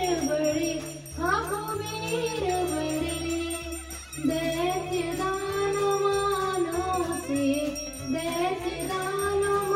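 Devotional song: a voice sings a melody over a steady instrumental backing with a repeating bass line.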